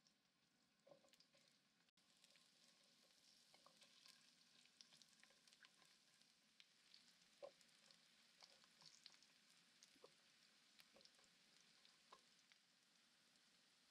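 Faint sizzling of garlic cloves and ginger slices frying in oil in a pan, with scattered small pops and crackles as chopsticks move them around. The sizzle grows a little about two seconds in.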